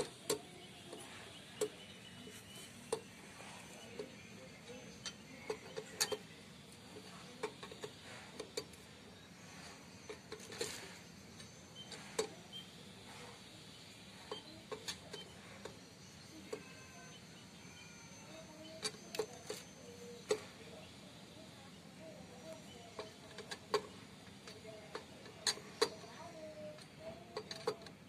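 Irregular sharp metallic clicks and taps from a T-handle socket wrench turning the clutch spring bolts of a JAWA motorcycle's clutch, as the four springs are tightened evenly.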